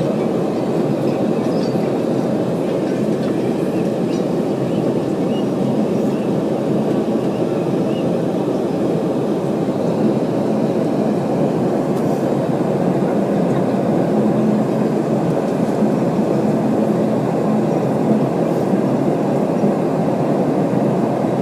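Steady, loud cabin noise of a Boeing 717 during takeoff: the rumble of its rear-mounted Rolls-Royce BR715 turbofans and rushing air, heard from inside the cabin, with a faint steady hum underneath.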